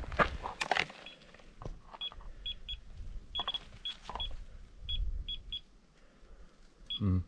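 BELLA Geiger dosimeter giving short, high-pitched count beeps at irregular intervals, about a dozen in all, each beep a registered radiation particle as it measures an ore sample. Rustling and knocks from handling in the first second.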